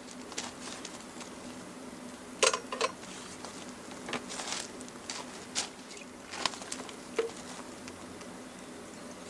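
Irregular light clicks, taps and rustles, with the sharpest pair about two and a half seconds in, over a faint steady low hum.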